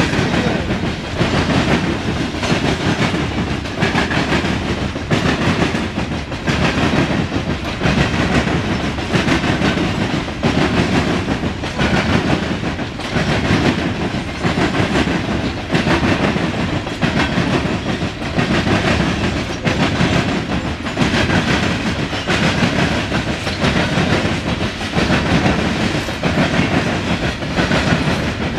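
Loaded CSX coal hopper cars of a freight train rolling past, steel wheels clicking over the rail joints in a steady repeating rhythm over the continuous rumble of the cars.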